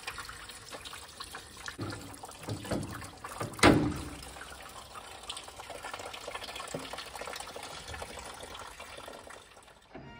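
Coolant draining from a Ford GPW jeep's radiator through the loosened bottom hose, a steady trickle and splash of liquid. A few knocks of the hose and parts being handled about two and four seconds in, the loudest near four seconds.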